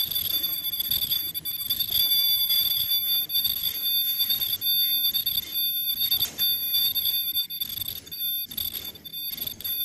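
Ultrasonic cutter on a cookie cutting machine giving a steady, piercing high-pitched whine over the machine's running noise, with brief dips in the noise every second or so.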